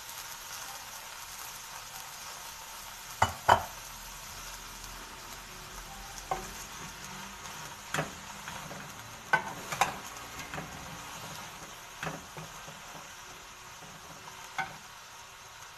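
Onion and garlic cloves sizzling steadily in olive oil in a pot. A utensil clicks against the pot about nine times as they are stirred, loudest twice about three seconds in.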